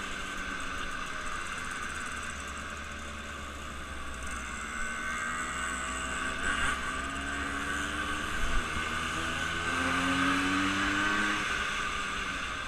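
A motor engine running steadily, its pitch slowly rising and falling, over a low rumble.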